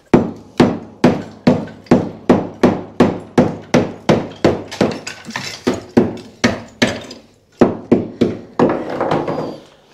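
Hammer striking a concrete floor screed in a steady rhythm, about two and a half blows a second, knocking out the core inside a ring of drilled holes to break a drain hole through into the hollow clay blocks beneath. A short break near the end, then a few more blows.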